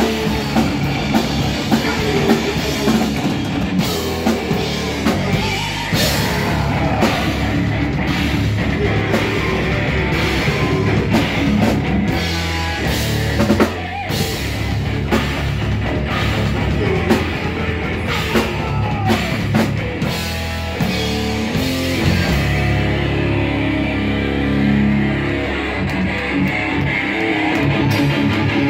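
Live rock band playing loud: electric guitars over a driving drum kit with crashing cymbals. Near the end the drums drop out, leaving the guitars ringing on their own.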